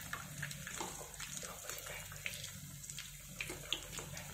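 Pizza pockets deep-frying in hot oil on a low flame: a steady sizzle with irregular crackles and pops from the bubbling oil.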